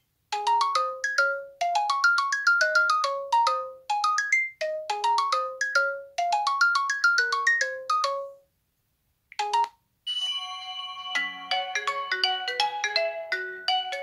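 LG G6 ringtones playing. A quick tune of short, fast-fading notes in rising runs stops about eight seconds in. After a short gap and a brief snatch of notes, a different ringtone with longer-held, overlapping notes starts about ten seconds in.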